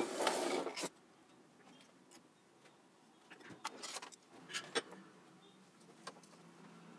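A printed circuit board being handled and turned over on a workbench: a brief rustle at the start, then a few faint, sharp clicks and taps about halfway through and once more near the end.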